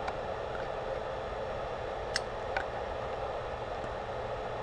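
Steady background hiss with a low hum from the electronics bench, and two faint ticks about two seconds in. No audible amplifier tone: the output goes into a test load, not a speaker.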